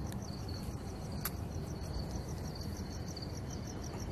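Steady low background rumble and hiss with a rapid, even, high-pitched pulsing, and a single sharp click about a second in.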